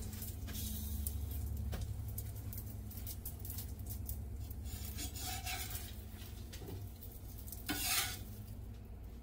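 Food sizzling in a pot while a spoon stirs and scrapes against it, with a louder scrape near the end.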